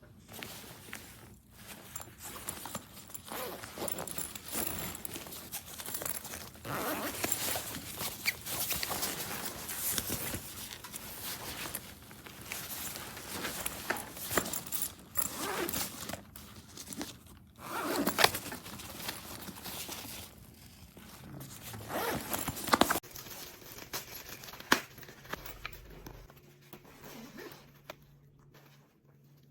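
Backpack zippers being pulled open and shut, with bag fabric rustling and scraping as the pockets are handled. It stays busy for most of the time and dies down to a few faint handling sounds near the end.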